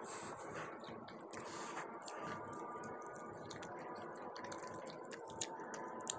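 Close-up wet eating sounds: chewing, lip smacks and squishy hand-mixing of curry and rice, with many small clicks and two sharper clicks near the end.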